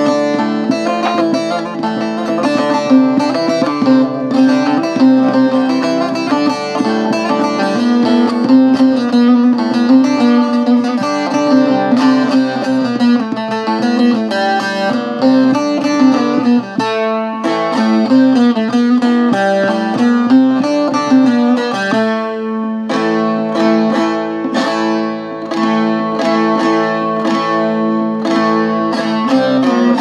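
Instrumental break of a Kurdish song: a plucked-string melody over a steady sustained backing, with no singing.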